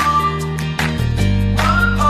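Upbeat background music: a sliding melody line over held bass notes and a regular beat.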